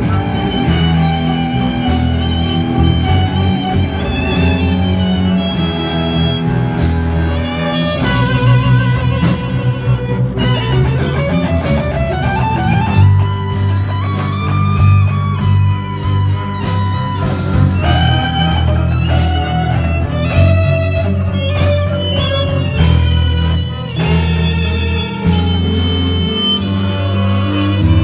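Live amplified ensemble of electric guitar, violins and cello playing an up-tempo piece with a steady beat.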